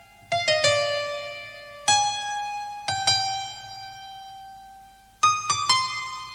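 Slow intro music on a piano-like keyboard: single notes and small groups of notes, each ringing out and fading, with a long held note that dies away before a quick cluster of notes near the end.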